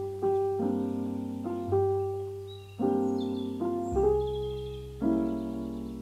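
Background piano music: slow broken chords, each note struck and left to ring, over a low bass note that changes every second or two.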